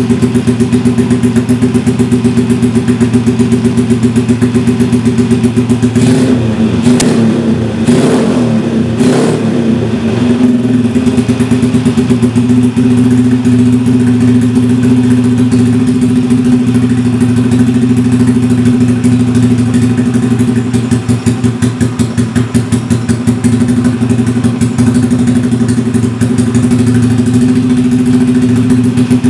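Honda Supra's four-stroke single-cylinder engine running through a DOS jigsaw racing muffler: a steady idle, with a few quick throttle blips about six to ten seconds in, then idling again.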